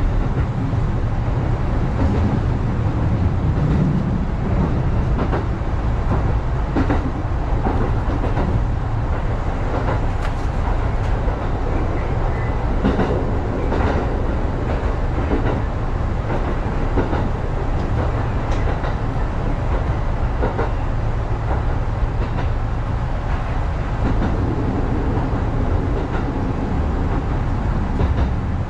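Electric commuter train running along the track, heard from inside the front car: a steady low rumble of wheels on rail with occasional short clicks and knocks.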